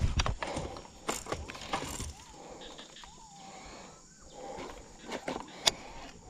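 Shimano SLX DC baitcasting reel and rod being handled and cast: sharp clicks and knocks, then short rising-and-falling whines from the spinning spool during the cast, and more clicks as the reel is engaged.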